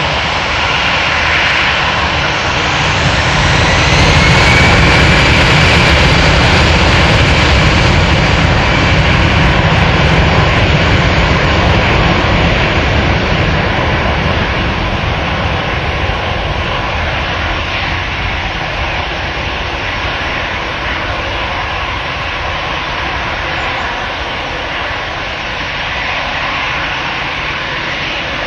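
Airbus A319-111's CFM56-5B turbofan engines spooling up for take-off, with a rising whine about four seconds in. The loud jet engine noise then runs steadily and slowly fades as the airliner rolls away down the runway.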